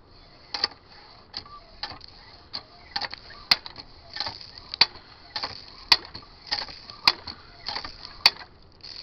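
Hand-operated pitcher pump being worked: the handle and its pivot linkage clank and squeak with each stroke, a steady rhythm of nearly two strokes a second. Every other stroke, about once a second, carries a sharper metallic click.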